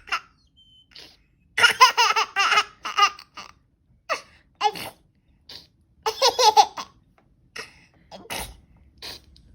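A young child laughing in high-pitched fits of quick pulses. The loudest fits come about a second and a half in and again about six seconds in, with short single bursts between.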